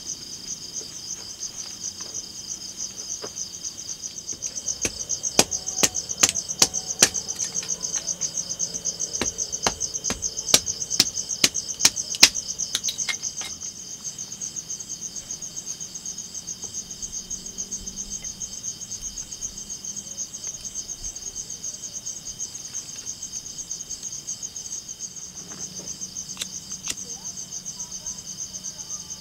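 Steady chorus of crickets chirring, with about a dozen sharp knocks from about five to thirteen seconds in: a blade striking a block of wood, splitting it into kindling.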